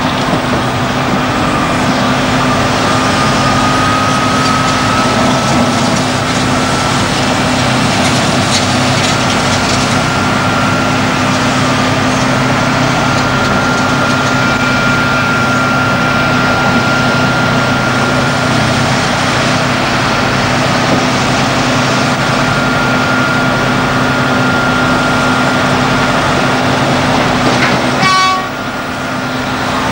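Large hydraulic excavator, a Liebherr R992, with its heavy diesel engine running steadily under load and a thin high whine over the engine. The sound dips and breaks off briefly near the end.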